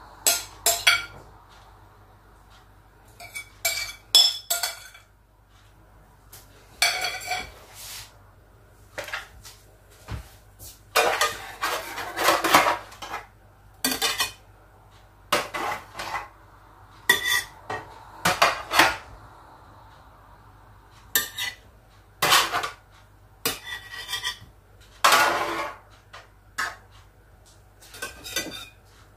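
Dishes and metal cutlery clinking and clattering as they are handled and set down, in an irregular series of sharp knocks with a few longer rattling stretches.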